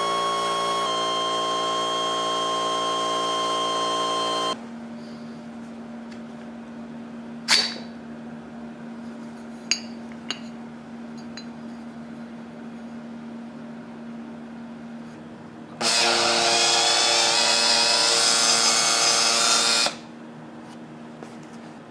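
A handheld rotary grinder runs steadily at high speed, grinding inside the steel tube of a bottle jack, and stops about four and a half seconds in. A sharp metallic click and a few small clicks follow as the metal parts are handled. Near the end, a power tool runs steadily again for about four seconds.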